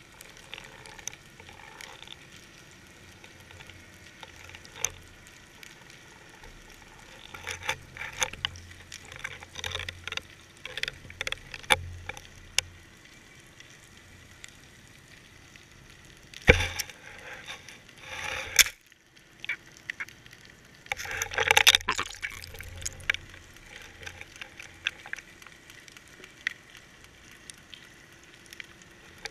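Underwater sound picked up by a GoPro in its waterproof housing on a deep-dropped fishing rig: a steady crackle of small clicks, with louder knocks and short rushes of noise as the rig swings and bumps, a sharp knock about sixteen seconds in and a dense clattering burst around twenty-one seconds in.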